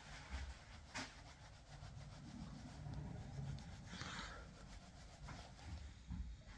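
Faint rubbing as a makeup brush is swept over the cheek to apply blush, with a soft tap about a second in and a brief hiss around four seconds in.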